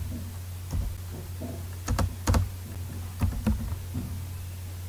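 Computer keyboard keys tapped a few times, as sparse separate keystrokes over a steady low hum.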